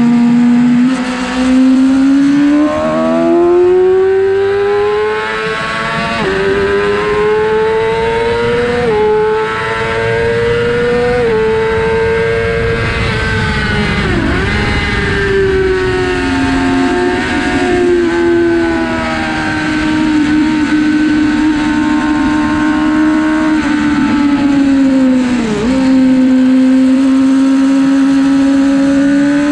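2006 Yamaha R6's inline-four engine at high revs, rising in pitch through the gears with abrupt steps in the first third. It drops sharply about halfway through as the bike slows, then pulls and holds a fairly steady high note, with a brief dip near the end. A low rush of wind runs underneath.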